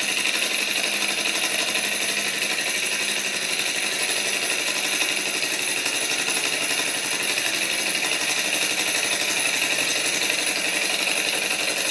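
ENJOMOR gamma-type Stirling engine model running steadily at a fast, even pace, its flywheel and conrods turning without load (generator belt not fitted), at what the builder calls not a silly speed.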